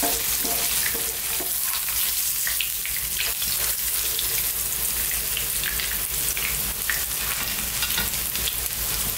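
Flour-dusted sea bass shallow-frying in hot oil in a nonstick frying pan: a steady sizzle full of small crackles, with a few stronger crackles in the first second or so.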